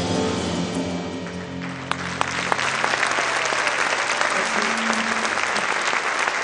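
A band's final chord rings out and fades, and about one and a half seconds in the audience breaks into loud, sustained applause while a few low notes linger underneath.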